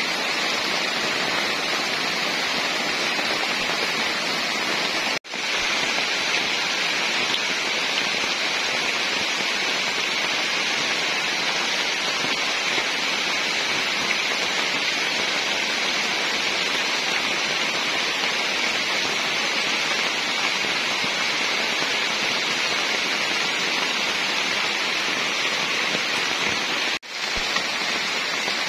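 Heavy rain falling steadily on foliage and wet ground, an even hiss broken twice by brief gaps, about five seconds in and near the end.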